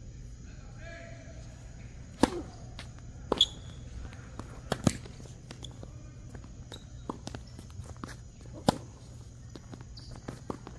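Tennis rally on a hard court: tennis balls struck by rackets and bouncing off the court, a string of sharp pops with four loud ones about 2, 3.5, 5 and 9 seconds in and fainter pops between.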